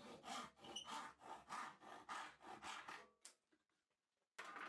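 Handsaw cutting through a softwood board in quick, even push-and-pull strokes, about three to four a second, which stop about three seconds in. A short, brief noise follows near the end.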